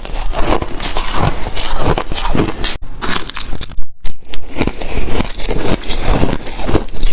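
Close-miked biting and crunching of shaved ice: a dense run of crackling crunches, broken by two abrupt silent cuts about three and four seconds in.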